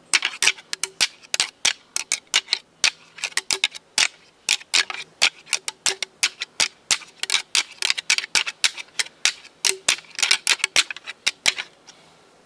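Deer-hunting rattling, meant to draw a blacktail buck in: dry, sharp clacks coming several a second in uneven bunches, stopping about a second before the end.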